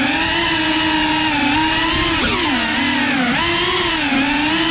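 GEPRC Cinelog cinewhoop FPV drone's brushless motors and ducted propellers whining steadily. The pitch dips and rises several times with small throttle corrections.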